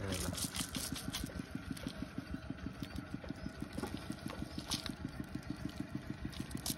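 A small engine idling steadily, an even low chug of about ten beats a second. Two sharp clicks stand out over it, one about two-thirds of the way in and one at the very end.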